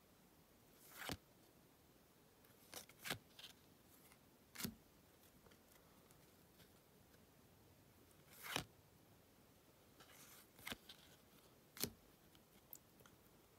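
Topps trading cards being flicked through by hand: about seven short swishes as single cards slide off the stack, a second to a few seconds apart, with near silence between.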